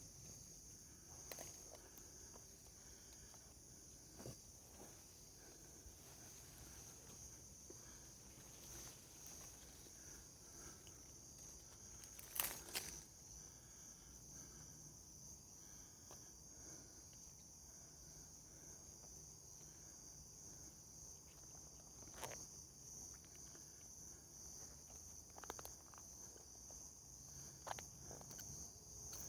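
Steady high-pitched chorus of insects, likely crickets, with a few scattered faint clicks or knocks; the loudest click comes about halfway through.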